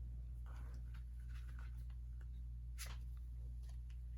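Faint rustling and scraping of an album's paper packaging being handled, with one sharp tap near the end, over a steady low electrical hum.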